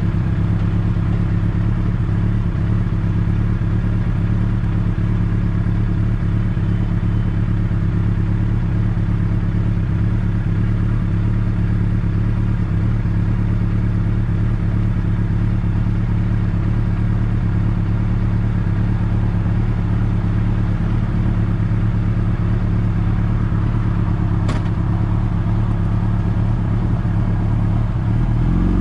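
Vehicle engine running at a steady, unchanging pitch, with a single faint click near the end.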